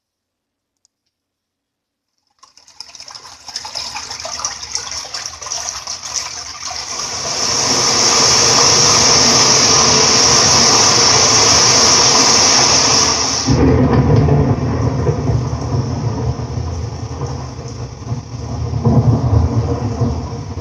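A played-back sound effect of rushing water. After a couple of seconds of silence it builds to a loud, steady hiss, then about two-thirds of the way through turns into a deeper rush with more low rumble.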